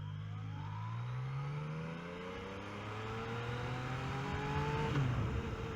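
Yamaha XSR900's inline three-cylinder engine pulling under acceleration, its pitch rising steadily for about five seconds, then dropping abruptly near the end.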